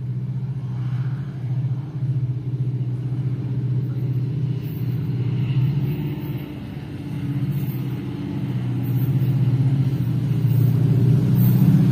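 Diesel-electric locomotive engine throttling up as the train pulls away, a deep steady drone that grows louder over the last few seconds.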